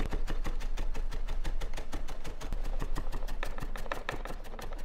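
Chef's knife rapidly mincing onion on a wooden cutting board: an even run of quick blade knocks on the wood, about ten strokes a second.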